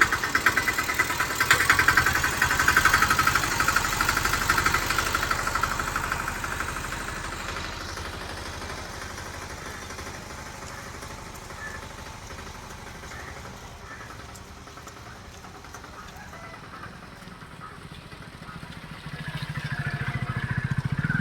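A small engine running with a fast, even beat, loud at first and fading away over the first several seconds. A lower sound swells near the end.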